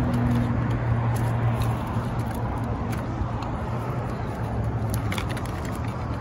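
A steady low engine hum with a wash of outdoor noise, and a few light clicks and rustles as a small saddlebag and tools are handled on the pavement.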